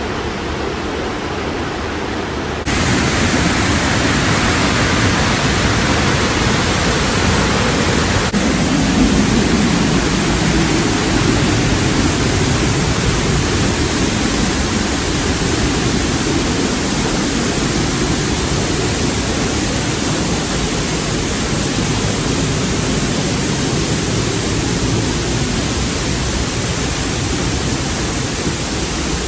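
Steady roar of a waterfall's falling water, a continuous rushing noise that jumps louder about three seconds in.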